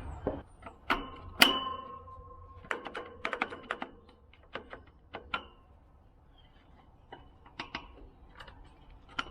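Scattered metal clicks and taps from handling the sheet-metal casing of an outdoor air-conditioner condenser unit, with one louder clank about a second and a half in that rings briefly.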